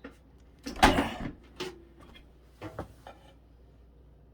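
Knocks and clatter of objects being handled: a loud clunk about a second in, then a few smaller knocks.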